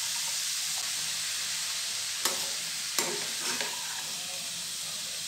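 Chopped cabbage, grated carrot, capsicum and beans sizzling in oil in a kadai, stirred with a steel spatula. There are two sharp knocks of the spatula on the pan a little past two and three seconds in, followed by some brief scraping.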